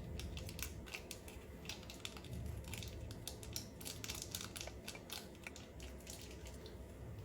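Irregular clicks and rustles of small objects and packaging being handled, over a steady low rumble.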